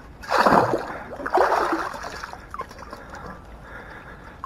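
A detectorist's sieve being washed in lake water: two splashing sloshes in the first two seconds, then quieter water sounds.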